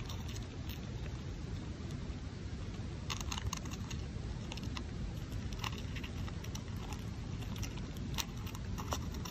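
A small animal chewing at a backpacking tent, heard from inside as irregular quiet clicks and crinkles over a steady low hiss, with a cluster of clicks about three seconds in and more near the end.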